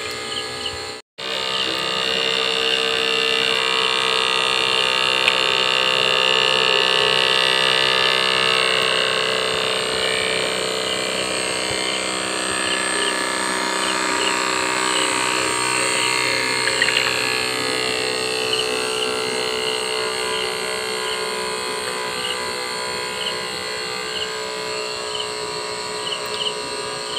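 Small brushed DC toy motor whining steadily as it spins a plastic air propeller, driving a bottle boat across the water.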